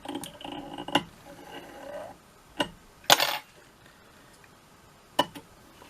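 Small metallic clicks and a brief rasp from fly-tying tools at the vise during a whip finish of the thread, with a faint thin squeak of thread under tension in the first two seconds.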